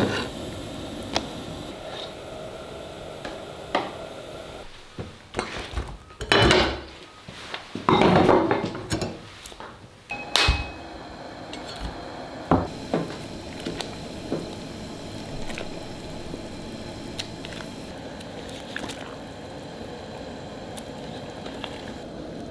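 Bone stock being made: a pot of bones bubbling steadily, broken in the middle by a run of loud, longer noises, then a few sharp knocks of a meat cleaver chopping bone on a wooden chopping block.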